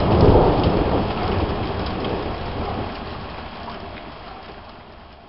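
Heavy rain with a rumble of thunder, the whole sound fading steadily away over the last few seconds.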